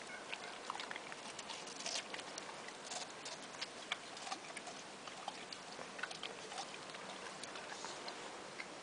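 Irregular faint clicks and light crackles, several a second, over a low hiss.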